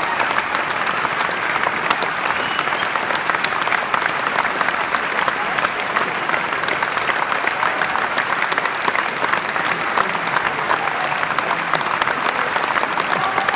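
Large theatre audience applauding steadily: dense, unbroken clapping.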